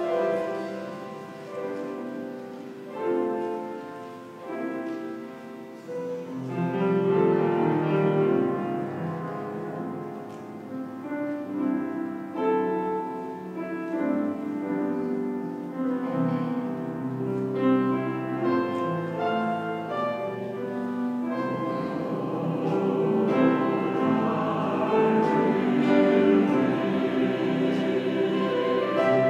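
Piano playing a slow introduction of held chords. In the last several seconds the sound grows fuller and wavers, as a choir's voices come in.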